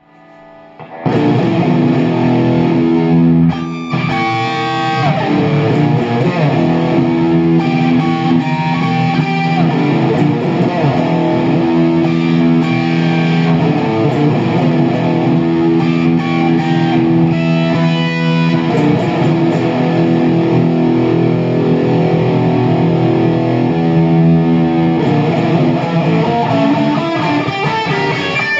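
Guitar music, starting about a second in and running on with sustained notes, with a brief break near three and a half seconds.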